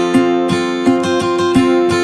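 Background music: an acoustic guitar strumming a steady rhythm, with a strong strum about every three-quarters of a second.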